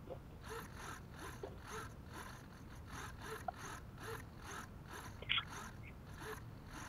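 Several small hobby RC servos whirring in short, repeated sweeps, about two to three a second, as they follow the transmitter's stick commands: the receivers are still holding their radio link during a range test. A short, higher chirp stands out about five seconds in.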